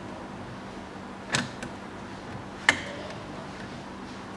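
Two sharp clicks about a second and a half apart as a spring hose clamp and hose are worked into place on a power steering fluid reservoir.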